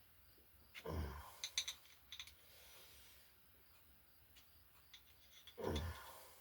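Small metal clicks of wrenches working the nut of a PL-259 coax connector as it is tightened down onto RG-213 cable. Two heavy exhales of effort come about a second in and again near the end.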